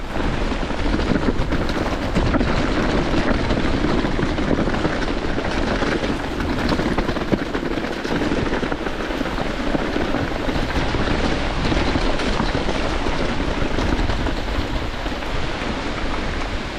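A Giant Glory downhill mountain bike descends a wet trail at speed, with a steady loud rush of wind and rolling trail noise.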